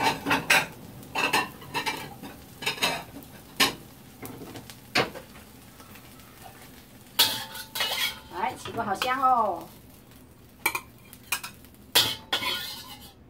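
Metal spatula scraping and knocking against a wok while turning frying scallion omelette, with faint sizzling. A brief squealing scrape comes about two-thirds of the way through.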